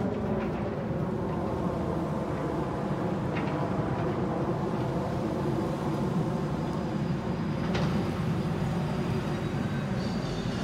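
Steady low engine drone, with a short tick about eight seconds in.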